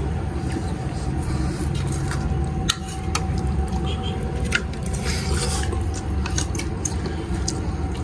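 Scattered light clinks of cutlery against dishes over a steady low hum with a faint held tone.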